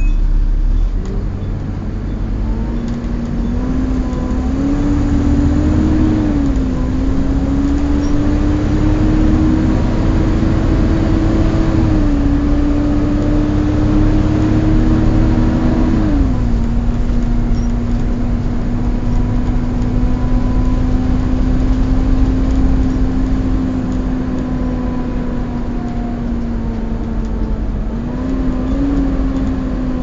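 Volvo B7TL bus's engine cooling fan whining with the vacuum-cleaner-like 'hoovering' sound, over the low rumble of the running bus, heard from inside the upper deck. The whine holds one pitch for long stretches, steps down twice partway through, and rises briefly near the end.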